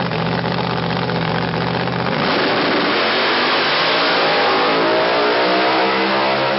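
Drag race car's engine running steadily at the starting line, then at about two seconds in it launches at full throttle, the engine note rising as the car accelerates away down the strip.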